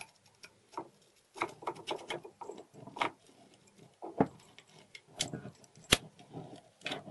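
Metallic clicks and rattles as a profile lock cylinder is fitted into a Glutz tubular-frame mortise lock case and handled, with a sharp single click about six seconds in.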